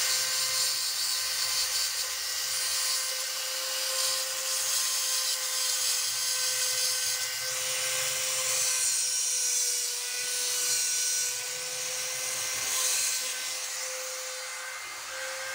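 Small handheld rotary tool running at a steady high whine while its bit grinds out the grooves that the thread has worn into a hole on an old Adler shoemaker's sewing machine. A grinding hiss swells and fades as the bit works against the metal.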